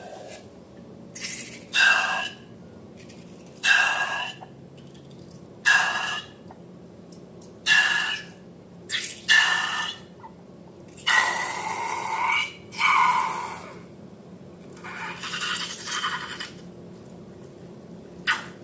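Hands handling slime and balloons: a series of short sounds, roughly one every two seconds, with two longer ones near the middle.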